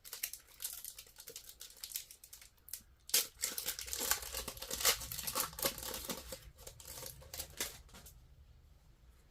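Trading card pack wrapper being crinkled and torn open, a dense crackling rustle that grows louder about three seconds in and stops shortly before the end.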